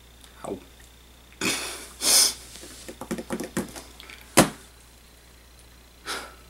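Two people laughing under their breath: short breathy bursts and giggles, with a single sharp click about four seconds in.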